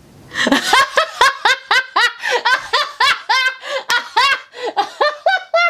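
A woman laughing hard: a long unbroken run of short laughs, about four a second, starting about half a second in.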